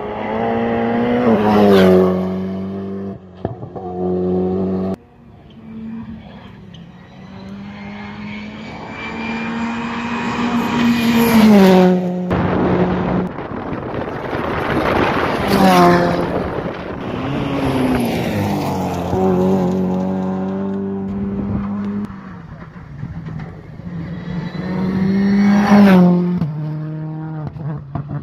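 Rally cars racing past close by on a tarmac stage, several pass-bys in a row. The engine note climbs as each car accelerates hard through the gears, then drops sharply at gear changes and as the car goes by.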